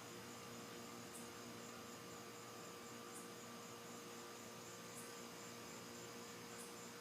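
Quiet night background: a steady faint hum and hiss, with a short high insect chirp about every two seconds. No thunder is heard.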